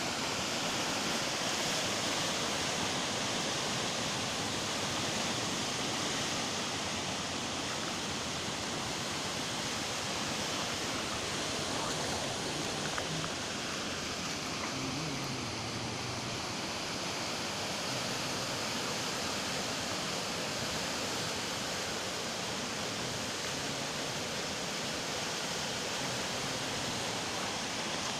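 River in flood, its water rushing by in a steady, unbroken wash of noise.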